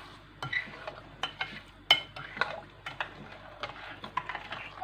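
A spoon stirring a wet mixture of granulated sugar, grated lemon peel and lemon juice in a container. It makes irregular clinks and scrapes against the sides, a few a second, with the loudest knock about two seconds in.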